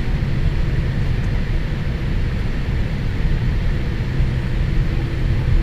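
Cabin noise of a Boeing 787-8 taxiing, heard inside by the window: a steady low rumble with a hiss above it from its General Electric GEnx engines running at low power.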